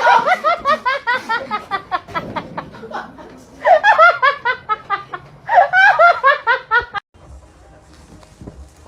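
A person laughing hard in quick, repeated bursts, in several fits; it cuts off suddenly about seven seconds in.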